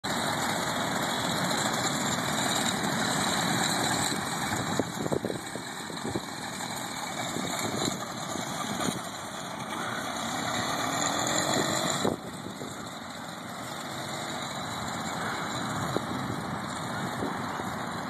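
Small engine of a motorized Schwinn Stingray OCC chopper bicycle running as it is ridden around, growing louder and fainter as the bike moves nearer and farther, with a sudden drop in loudness about twelve seconds in.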